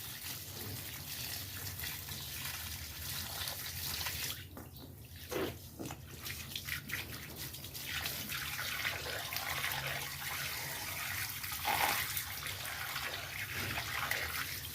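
Water running from a tap and splashing, with a brief lull about four to five seconds in.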